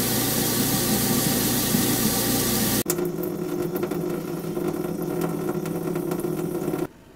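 Kitchen garbage disposal running with the tap on: a steady motor hum under the hiss of running water, which cuts off about three seconds in. Then water dripping, separate drips over a steady low hum, until it stops near the end.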